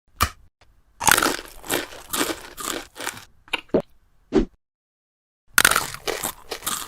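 Crunchy biting and chewing eating sound effects in a string of short bursts, as of a hard shell being cracked and chewed, broken by spells of dead silence.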